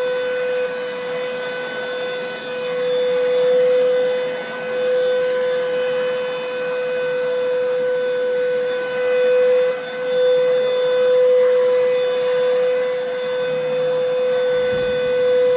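Vacuum cleaner running with a steady high motor whine, its loudness swelling and dipping every second or two as it is worked back and forth.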